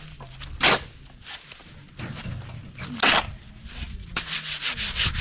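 A hand tool scraping through concrete mix on a masonry job: two loud scrapes about two and a half seconds apart, with softer scrapes between.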